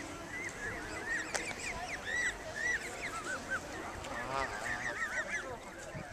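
Canada goose goslings peeping: a steady stream of short, high, arching chirps, several a second, from a brood among adult geese, with a busier cluster of calls about four seconds in.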